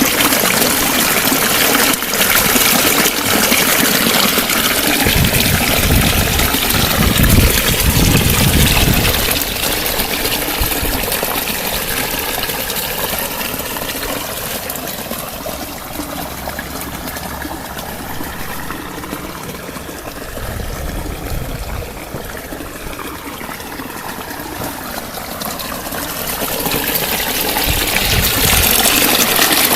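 Water trickling and gurgling steadily, a continuous splashing rush.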